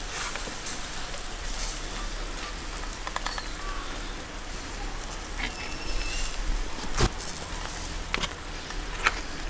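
Charcoal grill crackling and lula kebabs sizzling, with a few sharp clinks of metal skewers knocking together as they are lifted off the grill and laid down, the loudest about seven seconds in.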